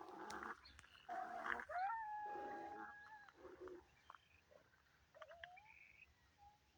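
Wild burro braying: rough, breathy pulls alternating with held, pitched notes that step abruptly between levels, faint, with a shorter second call near the end.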